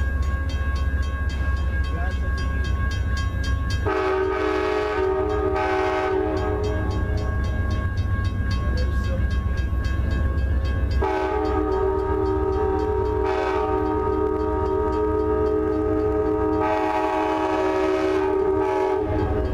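Locomotive air horn sounding a chord of several notes as a train approaches: one blast about four seconds in lasting about two seconds, then a long run of blasts from about eleven seconds until near the end. A steady low rumble sits under it throughout.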